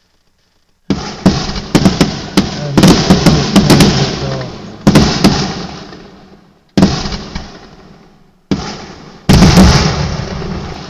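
Aerial fireworks shells bursting. A sudden bang about a second in starts a rapid volley of sharp bangs over about two seconds, and four more bursts follow a second or two apart, each trailing off in a long rolling echo.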